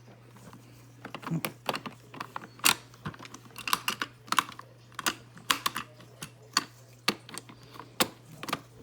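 Screwdriver worked against a plastic baby toy's battery-compartment screws and casing: irregular sharp clicks and taps, often several in quick succession.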